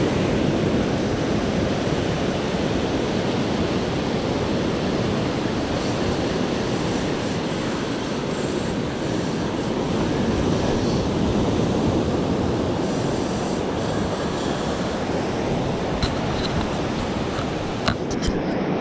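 Ocean surf breaking and washing up a sandy beach: a steady, unbroken rush of waves. A few light clicks come near the end.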